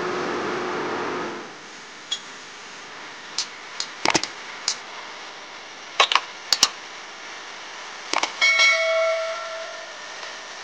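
Spatula knocking against a nonstick frying pan while pointed gourd pieces are stirred: a dozen or so light, separate knocks, then near the end a clang that rings briefly with a clear metallic tone.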